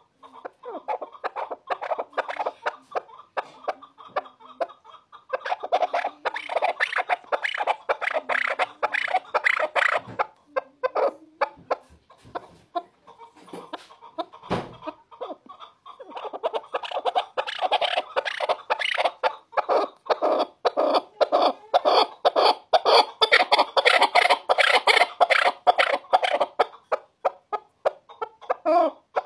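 Chukar partridge calling in rapid runs of short, repeated chuck notes. The loudest bouts come from about five to ten seconds in and again from about sixteen seconds on, with only scattered notes in between.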